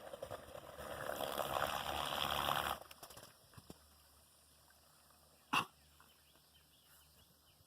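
Kayak motor running with a steady rush of noise and a low hum, cutting off suddenly about three seconds in; then quiet, with a single sharp knock a couple of seconds later.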